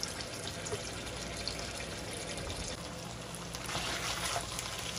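Chicken pieces in a wet yogurt-and-cream marinade cooking in butter and oil in a frying pan, with a steady bubbling sizzle. About three and a half seconds in, the sizzle turns brighter as the yogurt water has cooked off and the chicken starts to fry.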